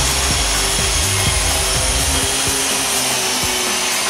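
Walkera CH-46 tandem-rotor electric RC helicopter hovering: a steady high whine from its electric motors over the hiss of the two rotors, with rotor downwash buffeting the microphone, the low buffeting easing off about halfway through.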